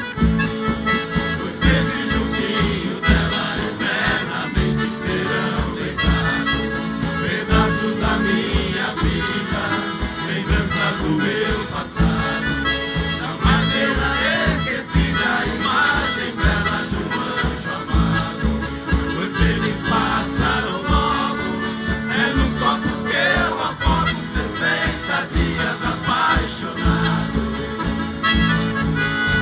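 Live instrumental music from a Brazilian country-music orchestra: a steady beat under a sustained melody line, with little or no singing.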